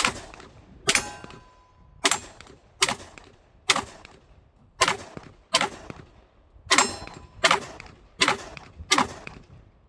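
A string of about eleven gunshots, roughly one a second, fired while test-running a batch of ammunition that all cycles without a stoppage. Several shots leave a short metallic ring.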